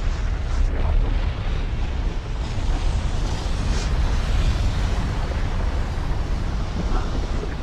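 Mixed film sound effects: a steady, deep rumble with a hissing noise layered over it.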